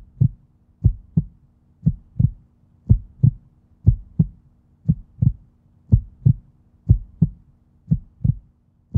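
Heartbeat sound effect: a steady lub-dub double thump about once a second, over a faint low hum.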